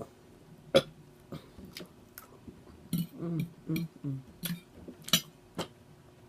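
Close-miked eating: sharp, wet lip smacks and mouth clicks, scattered through, with a cluster of short, low throat sounds about halfway through.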